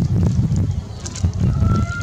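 Wind buffeting the Nikon P900's built-in microphone: a loud, gusty low rumble. About a second and a half in, a faint drawn-out call begins.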